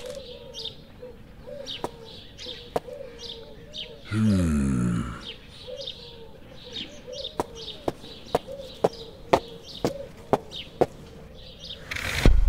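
Birdsong ambience: small birds chirping over and over, with lower curved calls like a dove cooing. A low falling tone about four seconds in, a run of sharp clicks in the second half, and a loud hit near the end.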